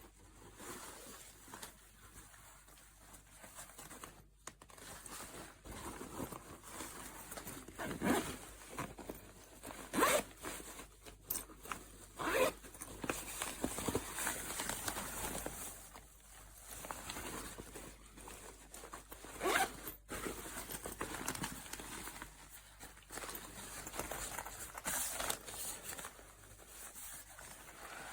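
Zips of a small fabric cabin backpack being pulled open and shut, in several separate zipping strokes with handling noise between them.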